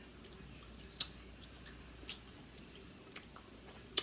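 Close-miked eating of Dungeness crab: faint chewing with four sharp clicks about a second apart, the last the loudest.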